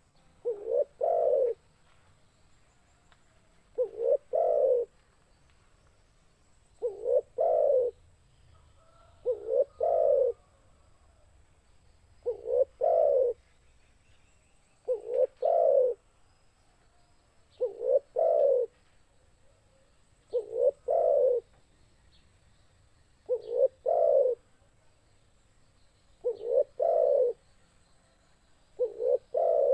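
Spotted dove (tekukur) cooing its song: a short low note followed by a longer two-part coo, repeated evenly about every three seconds, eleven phrases in all.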